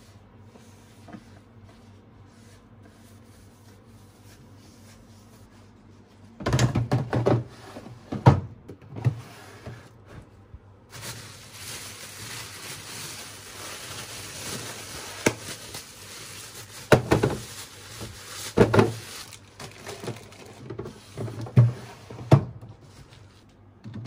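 Plastic bags of food rustling and crinkling as they are handled in a refrigerator drawer, with several clunks of plastic drawers, baskets and containers being knocked or set down. The first six seconds hold only a faint low hum before the handling begins.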